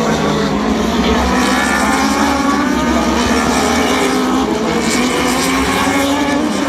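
Several racing superbikes at high revs, their overlapping engine notes rising and falling as they accelerate and shift gear.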